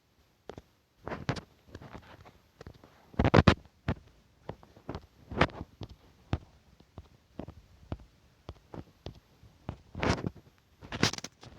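Irregular light taps and clicks, one every second or two, the loudest a short cluster about three seconds in; handling noise with no music or speech.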